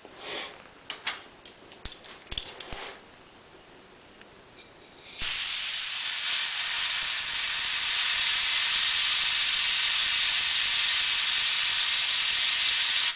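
A few small clicks and taps of handling, then about five seconds in a jet of compressed air from a blow-gun nozzle starts with a loud, steady hiss, spinning a Schreckling turbine wheel held between the fingers to feel for imbalance; the air cuts off abruptly at the end.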